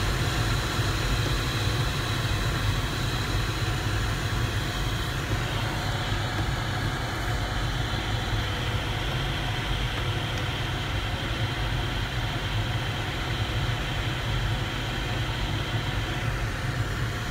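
Steady rush of airflow over the canopy inside the cockpit of a Duo Discus glider gliding just after release from tow, with a low, even rumble.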